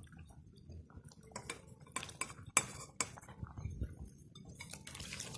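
Several sharp clinks of a plate and utensil against a stainless steel cooking pot as fish is slid off the plate into the boiling broth.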